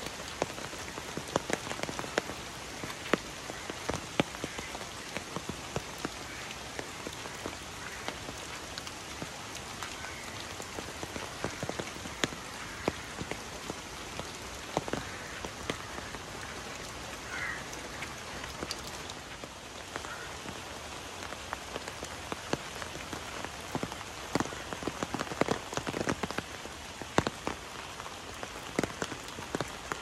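Steady rain falling, with many sharp, irregular taps of raindrops hitting an umbrella close above, coming thicker for a few seconds near the end.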